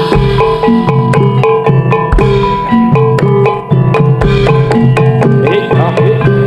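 Jaranan dance accompaniment: Javanese gamelan-style music of rapidly repeated struck metal keyed notes over a steady drum pattern, played loud through a sound system.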